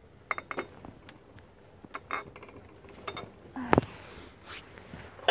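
Glass jars clinking against one another and the shelf as they are handled: a handful of sharp clinks with a brief ring, the loudest a heavier knock about two-thirds of the way in.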